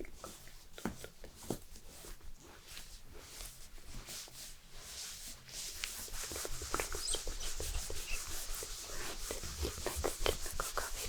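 Hands rubbing and stroking in a mock massage, a run of close, crackly friction sounds that grows busier and louder about halfway through.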